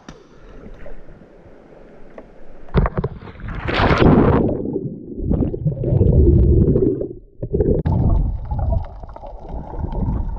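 Seawater splashing loudly as the camera plunges under the surface about four seconds in, then muffled underwater gurgling and sloshing against the camera.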